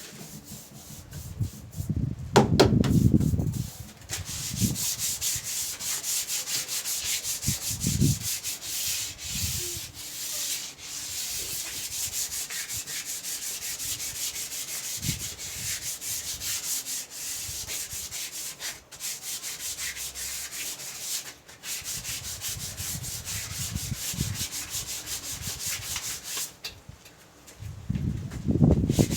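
Sandpaper rubbed over a wooden surface in quick back-and-forth strokes, a steady scratchy scraping. There are a few dull knocks near the start and again near the end.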